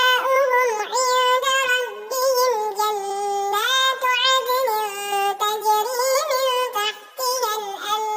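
A high, child-like voice chanting Qur'anic recitation in melodic murottal style, alone, holding long notes with wavering ornaments, with a short breath pause about seven seconds in.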